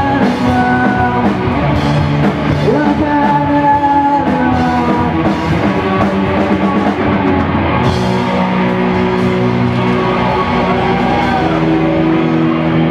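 Live grunge rock band playing loud, with electric guitars, drums and a singer.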